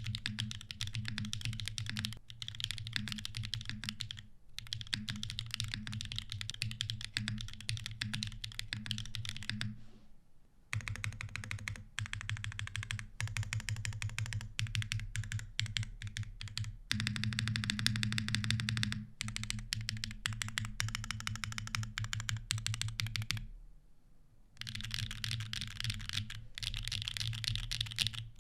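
Fast continuous typing on a mechanical keyboard with Siliworks Type R tactile switches in an aluminum plate, no foam inside, giving rapid clacking keystrokes with a deep low thud. The typing breaks off briefly about 4 seconds in, around 10 seconds, and again near 24 seconds.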